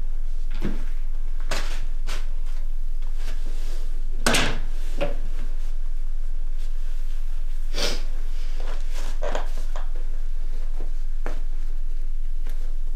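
A front door being opened and shut as someone steps in: a few scattered knocks and thuds, the loudest about four seconds in, over a steady low hum.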